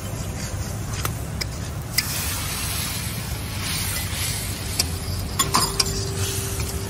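Spiced onion masala sizzling in a large metal pot on a wood-fired clay stove while it is stirred with a metal ladle, the ladle clinking sharply against the pot several times, mostly in the second half, over a steady low rumble. The masala is being fried down (kosha).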